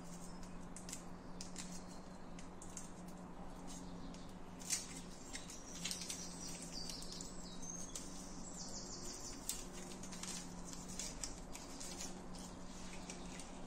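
Light crackling and pattering of seasoning crumbled by hand onto raw meat, with many small scattered ticks, over a steady low hum.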